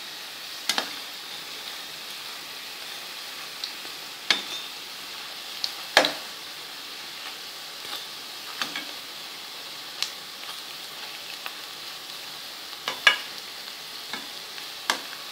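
Potato bread rolls deep-frying in hot oil in a kadhai: a steady sizzle. A perforated steel slotted spoon turning them clicks against the pan now and then, sharpest about six seconds in and again near the end.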